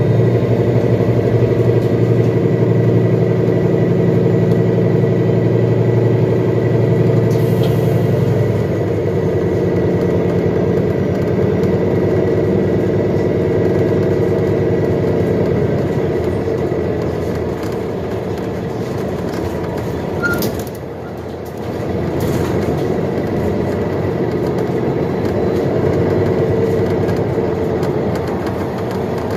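2021 Nova Bus LFS hybrid city bus heard from on board while it drives: the drivetrain runs under a steady whine over dense road and engine rumble. The level dips briefly a little past the middle.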